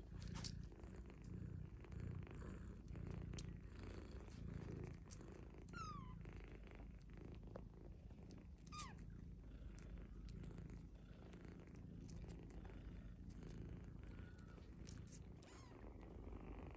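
British longhair cats purring steadily while kittens suckle at their mother. A couple of brief high squeaks falling in pitch cut through, the sharpest about nine seconds in.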